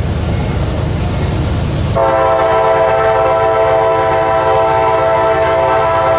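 CSX freight train's lead diesel locomotive approaching with a loud rumble. About two seconds in, its air horn sounds one long chord of several tones, held steady for about four seconds.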